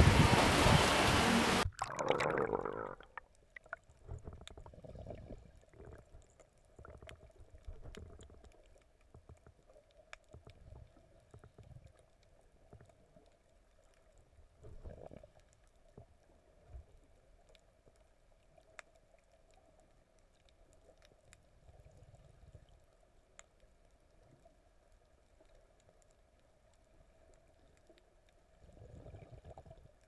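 Muffled underwater sound from a snorkeler's camera: irregular low rumbles and gurgles of water moving around it, with a faint steady hum and scattered faint clicks. A loud even hiss at the start cuts off suddenly about two seconds in.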